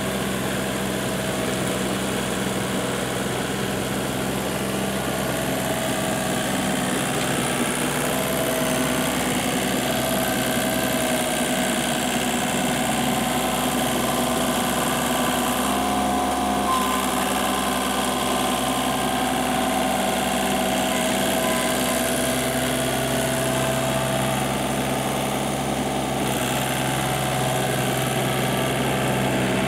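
Kubota compact tractor's diesel engine running steadily under load while it pulls an implement through a flooded rice paddy, its note shifting slightly about halfway through and again later.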